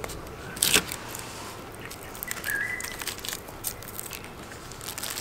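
Crisp crinkling and rustling as hands handle dry laver sheets, fried tofu sheets and their plastic packaging, loudest about a second in and then in scattered small crackles. A faint short whistle-like tone sounds about halfway through.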